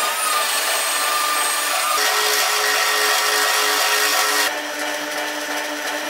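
Mitre saw cutting aluminium extrusion: a steady hissing grind over the whine of the saw motor. The sound changes abruptly twice, as short shots are cut together.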